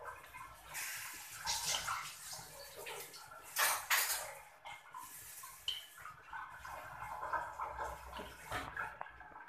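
Wooden chopsticks stirring fiddlehead fern shoots in water in a metal wok: irregular clinks and scrapes against the pan with sloshing water, the sharpest strokes about halfway through.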